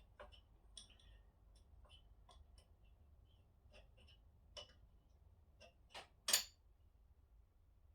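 Faint, irregular clicks and light taps of small parts and hand tools being handled, with a sharper knock about six seconds in.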